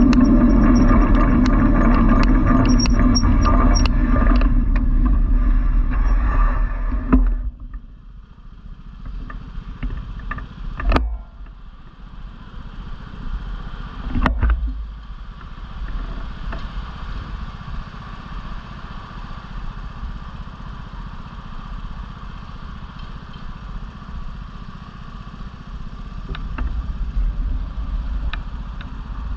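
Steady road rumble with a fast clatter of small rattles from a moving vehicle-mounted camera, cutting off abruptly about seven seconds in as it comes to a stop. Quieter street traffic hum follows, with two short knocks.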